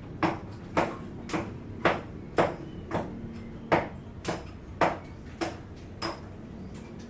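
Repeated hammer blows on a construction site, about two strikes a second, about eleven in all, stopping about a second before the end.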